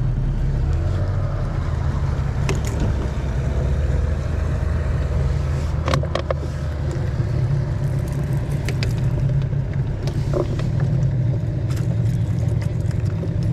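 Small boat's engine running steadily under way, a constant low drone. Short clicks and clatter of fishing lures and a plastic tackle box being handled come through on top of it.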